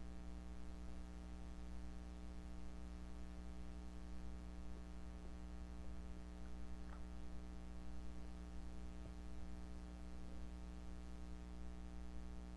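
Steady electrical mains hum with a few faint short gurgles, likely from the stomach. One brief rising squeak comes about halfway through.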